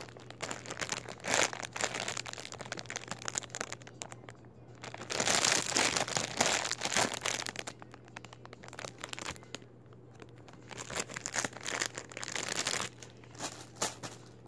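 Clear plastic packaging bag crinkling and rustling as it is handled and opened to take out a foam squishy toy, in irregular bursts, loudest about five to seven seconds in and again near the end.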